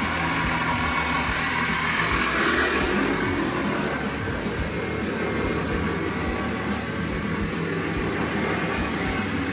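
A 6,000 lb electric winch on a 1946 Willys CJ2A running steadily under load, its motor and gears winding in cable.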